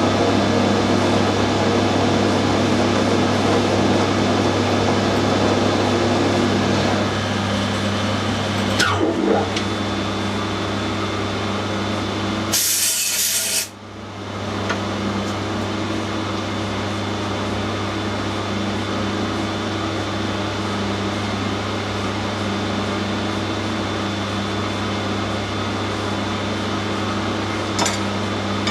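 Electric machine tool running steadily while cutting brass, a constant motor hum under a rough cutting noise. About two-thirds of the way through, a sudden hiss-like burst lasts about a second, then the steady running continues.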